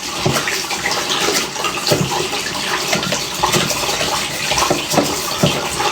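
Water running from a tap, with irregular splashes as something is washed under the stream.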